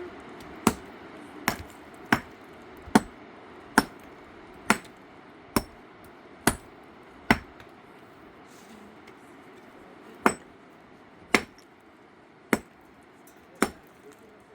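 Hammer blows struck one at a time, about one a second, with a pause of a few seconds midway before the strikes resume.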